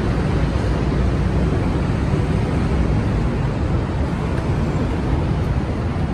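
A steady, even rumble of background noise, strongest in the low range, with no distinct sounds standing out.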